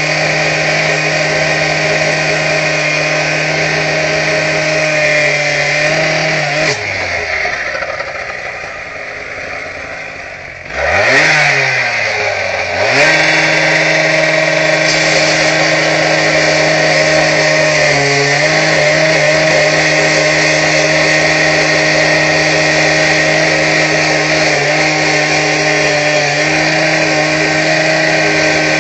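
Electric angle grinder cutting out mortar at the base of a brick wall, running at a steady high speed. About seven seconds in its motor winds down, and about four seconds later it spins back up to speed and runs steadily again.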